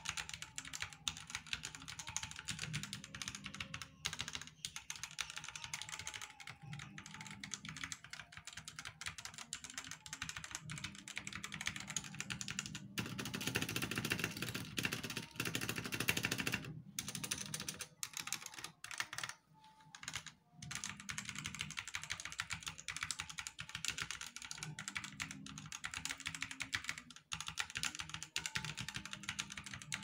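Typing on a Leaven K620 60% mechanical keyboard: a fast, continuous patter of key clicks. The clicks grow louder and denser for a few seconds near the middle and drop off briefly about twenty seconds in.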